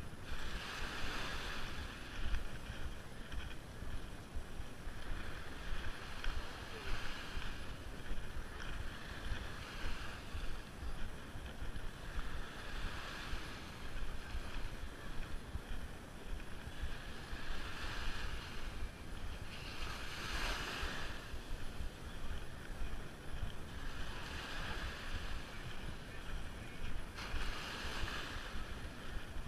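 Small waves breaking and washing up on a sandy beach, swelling and fading every few seconds, with wind rumbling on the microphone.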